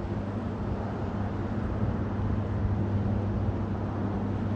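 Steady low engine drone, an even hum that holds through without change.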